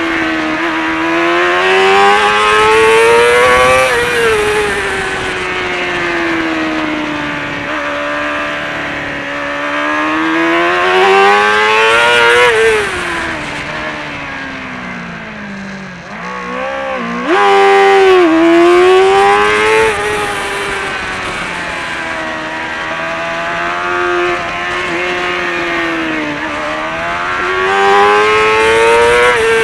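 Kawasaki ZXR400 racing motorcycle's inline-four engine at racing revs, the pitch climbing hard under acceleration and dropping sharply at each gear change. Around the middle it winds down while braking, with a few quick rev blips on downshifts, then picks up loud acceleration again.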